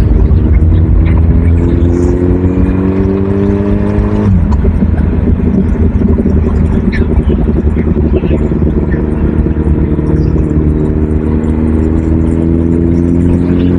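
A motor vehicle's engine pulling under acceleration, its pitch rising steadily, dropping abruptly about four seconds in as at a gear change, then climbing again near the end, over a constant low rumble.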